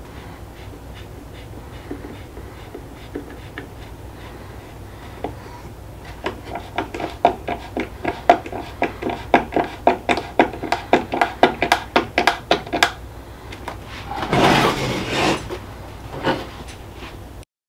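Hand screwdriver driving a wood screw into a wooden box: a steady run of quick clicks, about four a second, for several seconds, followed by a short scraping rub.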